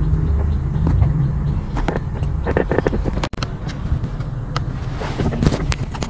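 Light metallic clicks and clinks of hand tools and parts on a manual gear lever assembly being bolted back together, with a steady low rumble underneath.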